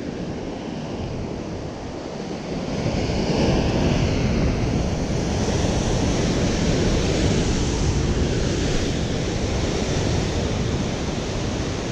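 Ocean surf breaking and washing over rocks below a sea cliff: a steady rush that swells about two and a half seconds in, with wind buffeting the microphone.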